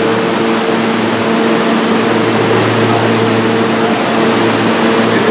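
New York City R160-series subway train standing at the platform with its doors open, its on-board equipment and air conditioning giving a steady, even hum with a low buzzing drone.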